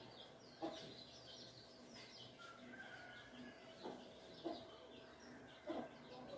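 Small birds chirping faintly in the background, with a chicken giving a few short, low clucks.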